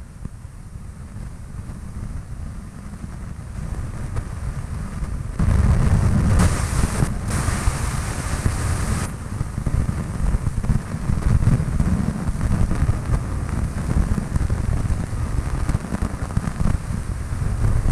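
Cessna 152's engine and airflow heard from inside the cabin, with heavy wind rumble on the microphone. The noise builds over the first few seconds, jumps up about five seconds in, and a burst of hiss rides on top for a few seconds after.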